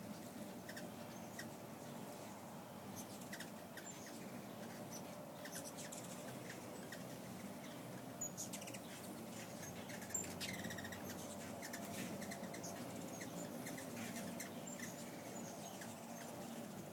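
Hummingbirds in flight: a steady low hum of wingbeats with frequent short, high chips and squeaks, and two sharper clicks about eight and ten seconds in.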